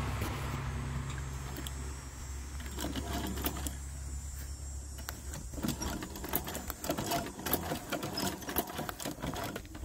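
Electric sewing machine stitching a zipper onto heavy rooftop-tent fabric. Its motor hums steadily through the first half, then gives way to irregular clicking and ticking in the second half.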